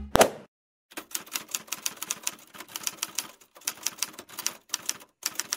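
Typing on a typewriter-style keyboard: quick, irregular key clicks in runs, several a second, with short pauses between the runs.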